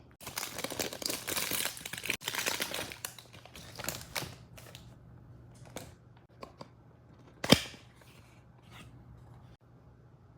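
Wrapping on a perfume box being torn and crinkled open for about three seconds, followed by scattered light handling clicks and rustles, with one sharp snap about seven and a half seconds in.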